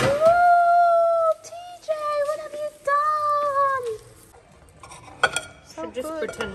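A high voice singing a few long held notes, the last one sliding down. A sharp clink of dishes follows about five seconds in.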